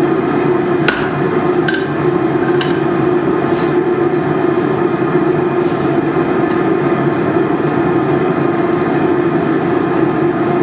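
Steady roar of a running blacksmith's forge, with a few light metallic clinks in the first few seconds.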